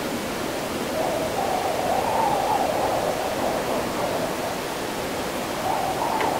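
Wind howling in gusts over a steady rushing hiss, the howl wavering up and down in pitch, swelling about a second in and again near the end.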